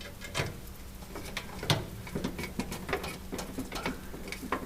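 Irregular clicks and light knocks from hardware being handled on a Viking range, the loudest about halfway through the first two seconds, as the door hinge area is worked on.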